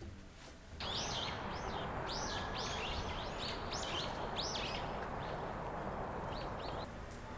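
Small birds chirping outdoors: a quick run of short chirps that rise and fall in pitch, over a steady outdoor background hiss. Both start about a second in and stop shortly before the end.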